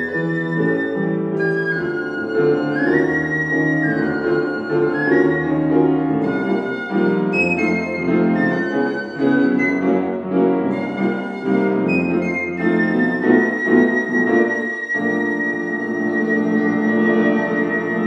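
Piccolo and grand piano playing a jazz waltz, the piccolo's high melody running over piano chords. In the last few seconds the piccolo holds one long high note over the closing piano chords.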